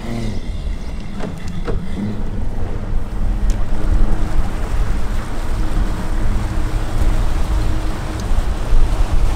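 Bass boat's outboard motor running under way, its pitch climbing in the first second, with wind buffeting the microphone.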